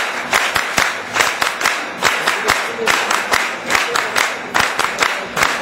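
An audience applauding, with dense, irregular hand claps.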